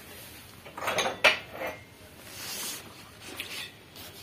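China cup and saucer clinking as they are handled and lifted out of a glass display: a few sharp clinks about a second in, then quieter handling.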